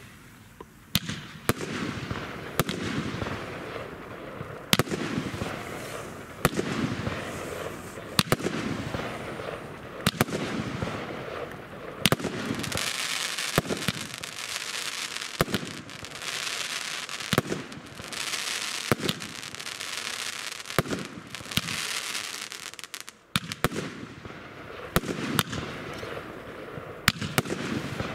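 Pangu Fireworks 'Vermillion Bird' firework cake firing shot after shot, with a sharp bang every second or two, sometimes two close together, over a steady hiss and crackle from the bursts. From about twelve seconds in until about twenty-three seconds, a dense high crackling hiss fills the gaps between the bangs.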